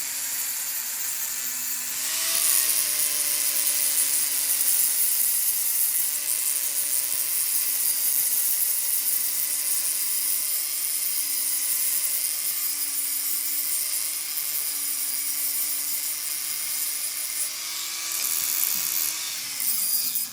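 A high-speed electric power tool working on a steel differential ring gear: a steady motor whine under a loud, hissing grinding noise that grows louder about two seconds in.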